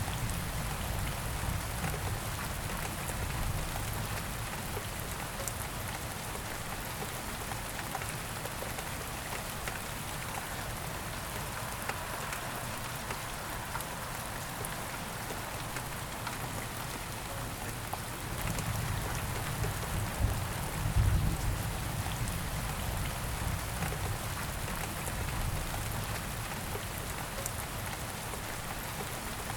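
Steady rain falling, an even hiss of drops on a surface, with a low rumble swelling for a few seconds about two-thirds of the way in.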